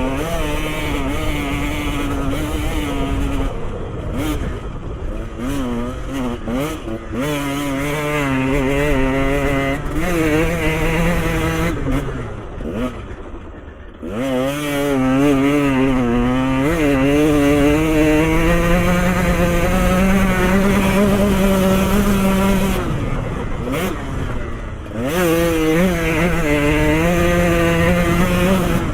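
Trail motorcycle engine revving up and down as the rider works the throttle and gears. About halfway through the revs fall away briefly, then the engine holds high, steady revs for several seconds before easing off and picking up again.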